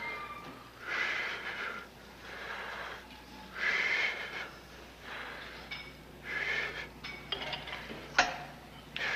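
A person breathing hard, with a hissing, wheezy exhale every second or two, and one sharp click about 8 seconds in.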